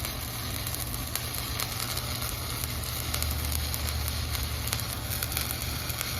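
Stick-welding (SMAW) arc from an ESAB Volt battery welder, crackling and sizzling steadily while a bead is run, over a steady low hum.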